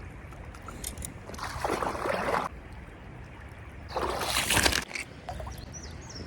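Water sloshing and splashing twice, about a second each, over a steady low rumble of a flowing creek.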